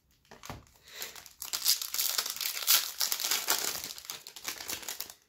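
Foil wrapper of an Upper Deck hockey card pack being torn open and crinkled: a dense crinkling rustle that starts about a second and a half in and runs almost to the end, after a few soft rustles of cards being handled.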